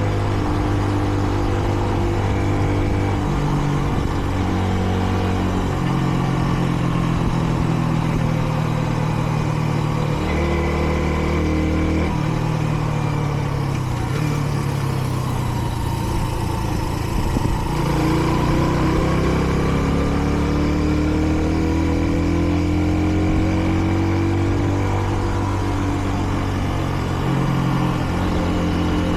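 Kreidler Dice CR 125 motorcycle's 125 cc single-cylinder engine under way. Its pitch steps several times as the gears are changed, and in the middle it falls off and then climbs again as the throttle is rolled off and back on. The engine is still in its run-in phase, so it is held to modest revs, no more than about 70 km/h.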